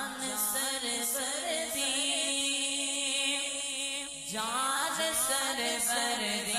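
A Naat sung without instruments: a solo voice holds long, wavering, ornamented notes, with no clear words, over a steady low drone.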